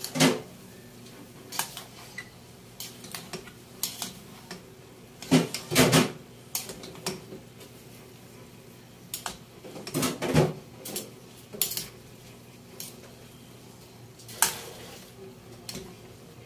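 Metal cookware clanking and scraping on the stove: a wide aluminium pan and metal utensil knocking together in scattered sharp clinks, some with a short ring. The loudest knocks come just after the start, around six seconds in and around ten seconds in.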